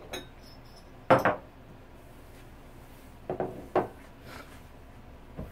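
Dishes and kitchenware being set down and moved on a kitchen counter: a light ringing clink at the start, a double knock about a second in, two more knocks a little after three seconds, and a soft thump near the end.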